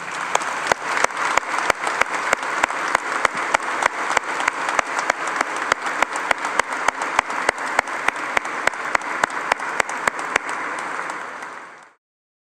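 Congregation applauding, with one close, loud clapper keeping an even beat of about three claps a second. The applause cuts off suddenly near the end.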